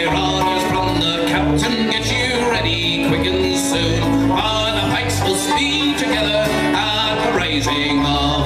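A live acoustic folk band plays a lively, steady-beat tune: banjo and acoustic guitars strum and pick while a man sings into the microphone.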